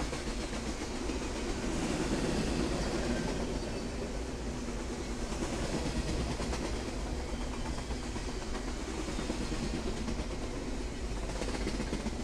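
Steel wheels of a double-stack intermodal freight train's container well cars rolling steadily past on the rails.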